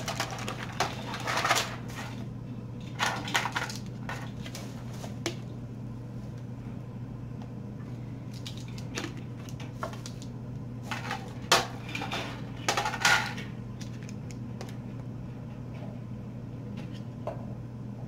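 Hard plastic discs of a turntable organizer knocking and clattering against each other and the table, with plastic-bag rustling, in scattered bursts as the pieces are unwrapped and handled. A steady low hum sits underneath.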